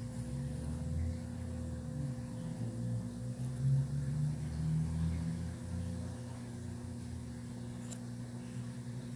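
A steady electrical or machine hum, with a wavering low rumble over it for the first six seconds or so.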